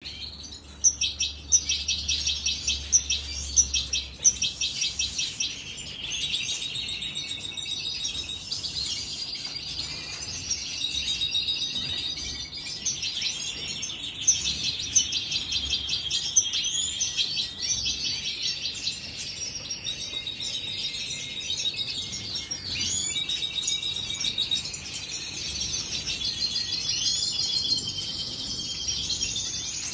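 Many caged European goldfinches singing together: a dense, overlapping chorus of twittering chirps and trills, loudest in the first few seconds.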